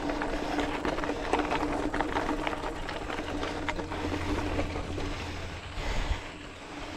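Specialized Rockhopper mountain bike ridden over a dirt trail: tyre noise with quick clicks and rattles from the bike, busiest in the first half, under a steady faint hum.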